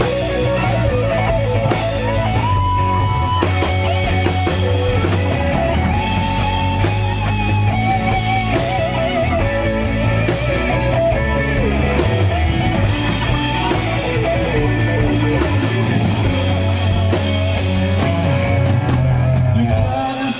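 Rock band playing an instrumental passage live: a melodic lead of held, wavering notes over guitar, bass and drum kit.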